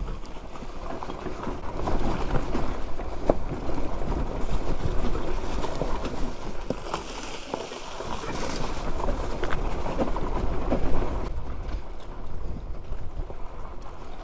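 Motorcycle rolling slowly down a steep, rocky track: a low engine rumble with scattered knocks and crunches from the tyres and suspension over rocks, and wind on the microphone.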